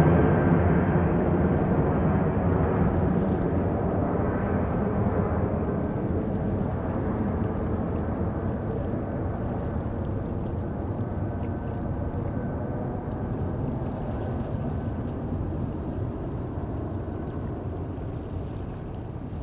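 Jet noise from a Boeing 747-400D's four General Electric CF6-80C2 turbofans at climb power just after takeoff: a low rumble that fades steadily as the airliner climbs away.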